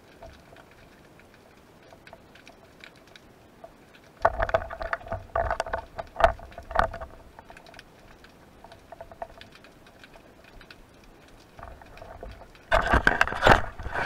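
Water heard through a camera on a speargun: a faint, steady underwater crackle of small clicks. About four seconds in, and again near the end, there are loud stretches of splashing and sloshing as the gun moves through the water near the surface.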